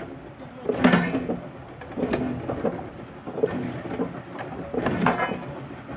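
Irregular metal clanks and bangs of heavy steel being handled in a metalworking shop, over a steady rumbling din; the strongest bangs come about a second, two seconds and five seconds in.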